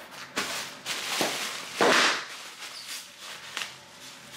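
Plastic packaging crinkling and rustling in short bursts as a parcel is handled and opened by hand, loudest about two seconds in.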